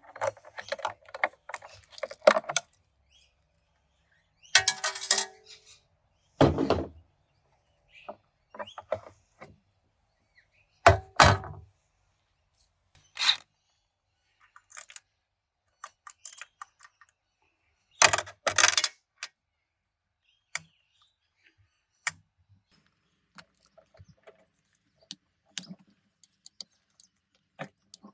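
Metal parts and hand tools clanking, knocking and rattling as an automatic transmission is taken apart, in irregular bursts with quiet gaps and a few heavier thuds.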